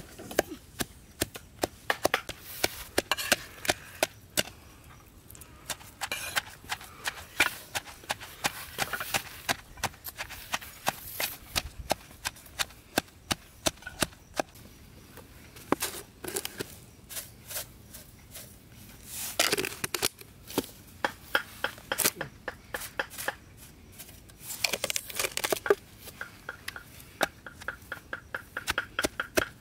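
Knife chopping and tapping on a wooden board in short, irregular runs of sharp knocks, with a couple of louder rustling scrapes partway through.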